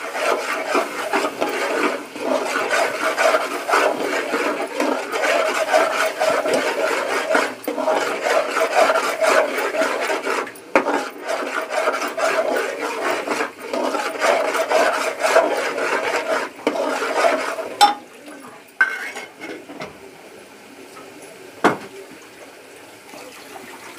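A ladle scraping and stirring a thick onion-mustard paste with turmeric as it fries in an aluminium pot, a dense steady scraping with many small knocks. About three-quarters of the way through it drops off to a quieter stretch with a few single knocks.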